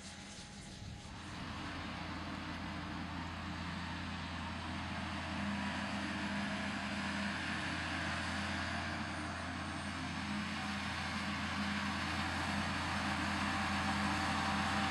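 John Deere tractor's diesel engine and a Lely Welger RPC 445 Tornado baler-wrapper running steadily while baling grass, a constant low engine hum with mechanical clatter that grows gradually louder as the outfit approaches.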